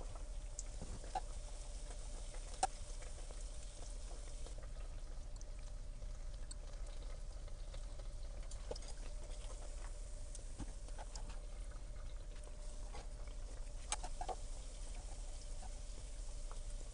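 Hot oil sizzling and crackling softly around youtiao (Chinese fried dough sticks) deep-frying in an electric deep fryer, with scattered small pops. A couple of sharper clicks come near the end as chopsticks turn the sticks.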